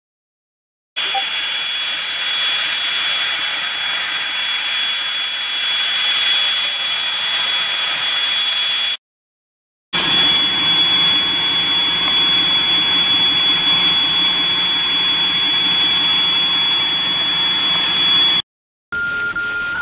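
Loud, steady hiss with a thin high whine through it, in two long stretches that start and stop abruptly, separated by short breaks of complete silence.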